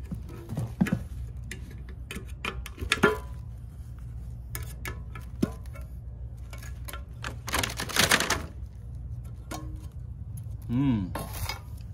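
Metal clicks, scrapes and knocks of a lid being pried off a gallon can of bottom paint, with the sharpest knock about three seconds in and a cluster of quick clicks around five seconds. A short rustling burst follows around eight seconds.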